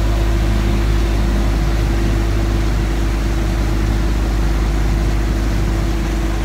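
A passenger boat's engine running steadily under way, a constant low drone with a steady hum, heard from inside the covered cabin over a steady rushing noise.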